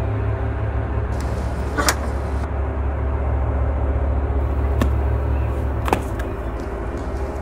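Steady low rumble with three sharp knocks, the loudest about two seconds in and two more near the end, as a weathered wooden door is pushed open and stepped through.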